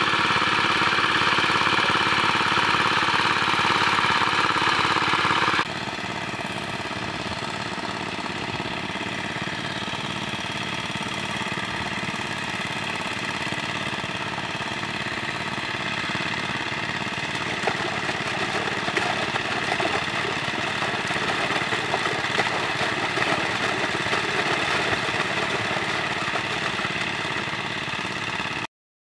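Portable water pump running steadily, with water gushing through its hoses. The sound drops abruptly to a quieter level about six seconds in, then runs on evenly until it cuts off near the end.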